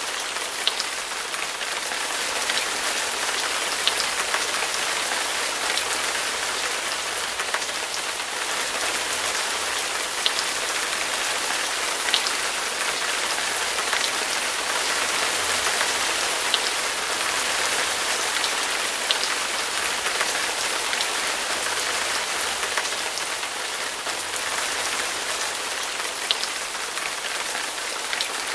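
Floodwater rushing past and over a low-level river bridge: a steady, even hiss with faint ticks every few seconds.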